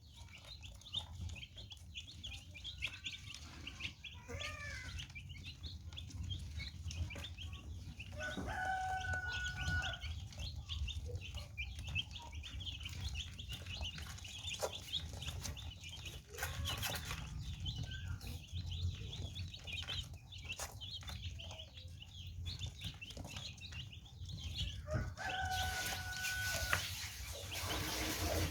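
Baby chicks chirping continuously in a flurry of short, high peeps. Twice a longer, steady-pitched call lasting about a second and a half stands out, over a steady low hum.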